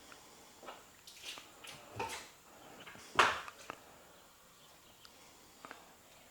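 Scattered knocks and clatter of things being handled or stepped on indoors, a few light taps and one sharp knock about three seconds in.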